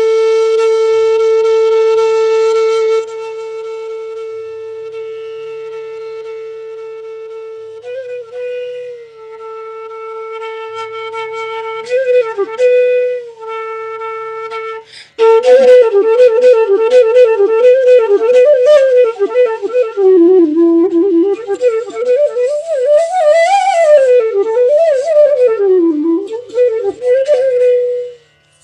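Bansuri, the North Indian bamboo flute, holding one long steady note that starts loud and softens after a few seconds, broken by brief ornaments. About halfway it breaks into a fast run of gliding, ornamented phrases rising and falling, which stops shortly before the end.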